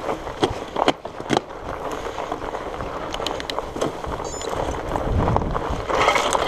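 A Surly Moonlander fat bike ridden through tall dry grass, with the grass swishing against the tyres and frame over wind noise on the microphone. A few sharp knocks and clicks come in the first second and a half and again a little after the middle, and the noise swells near the end.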